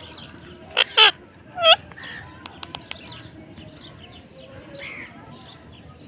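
Parrot calling: two sharp loud squawks about a second in, then a harsh call with a falling pitch, followed by four quick clicks, over fainter chirping.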